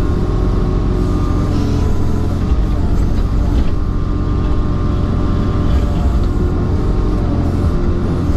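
CASE CX26C mini excavator's diesel engine running steadily, heard from inside the cab.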